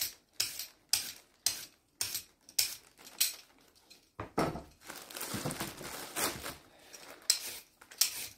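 Hand vegetable peeler scraping the skin off a carrot in short, quick strokes, about two a second, with a softer run of continuous scraping in the middle.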